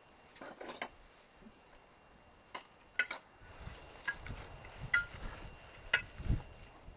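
A metal spoon clinking against an enamel bowl as a chopped salad is tossed: scattered sharp clinks, several with a short ring, and soft rustling of the leaves from about halfway.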